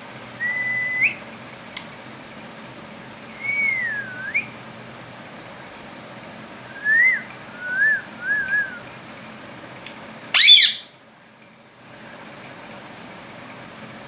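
Rose-ringed parakeet whistling a run of short clear whistles: a held note that rises at its end, a note that dips and rises again, then three quick up-and-down notes. About ten seconds in comes one loud, harsh squawk.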